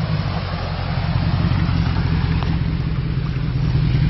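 Jeep Grand Cherokee's 5.7-litre Hemi V8 with a loud exhaust, rumbling steadily at low revs as it crawls along.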